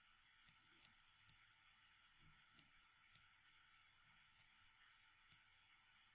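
Near silence with a faint hiss, broken by about seven light computer mouse clicks at irregular intervals, roughly one a second.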